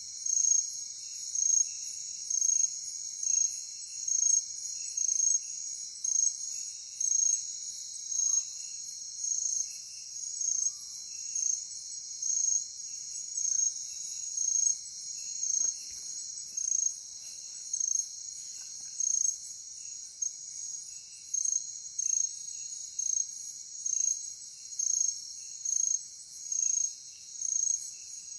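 Night insects, cricket-like, chirping in a regular pulse about once a second over a steady high-pitched drone of other insects.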